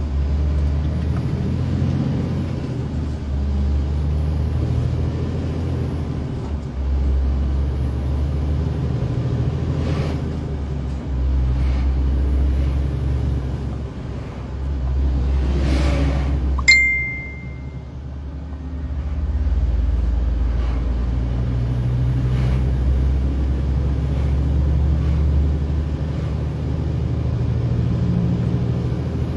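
Lorry engine running with a steady low drone and road noise, heard from inside the cab. About 17 seconds in there is a sharp click and a short high beep. The engine sound then drops for a couple of seconds before building up again.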